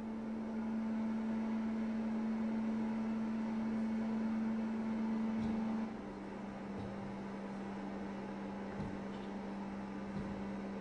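A sustained low drone from the piece's score: one steady tone that drops to a slightly lower pitch and gets a little quieter about six seconds in, over hiss, with a few faint knocks.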